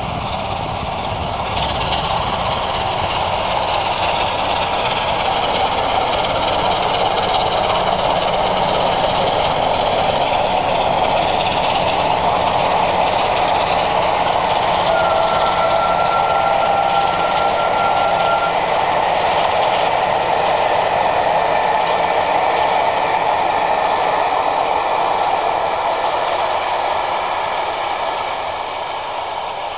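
The three-cylinder LNER Peppercorn A1 Pacific steam locomotive Tornado and its train of coaches passing by: a steady, loud noise of the working locomotive and rolling carriages that builds over the first seconds and fades near the end as the train draws away. About halfway through, a thin, steady high tone sounds for around three seconds.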